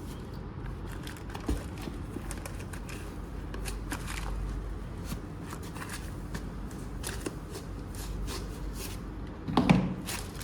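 Hands unpacking a boxed docking station: scattered light clicks, taps and rustling of packaging, with one louder knock near the end.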